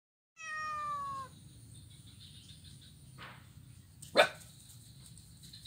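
A dog barks once, short and loud, about four seconds in. Earlier, near the start, there is a drawn-out animal call of a little under a second, falling slightly in pitch. Faint insects chirr throughout.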